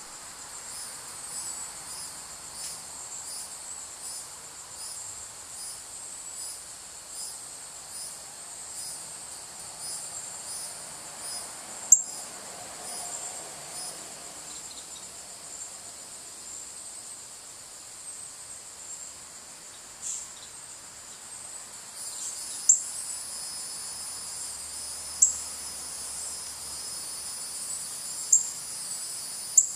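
Insects chirping high and rhythmically, about one and a half pulses a second, giving way about two-thirds in to a continuous high insect trill. Sharp single chip notes cut in every few seconds.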